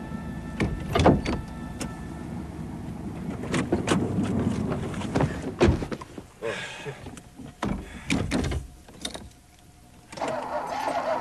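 A car engine running, with a series of sharp knocks and clunks over it.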